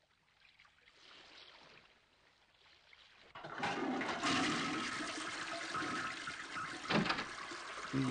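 A toilet flushing: the rush of water starts about three seconds in and carries on for about five seconds, with a couple of short knocks near the end.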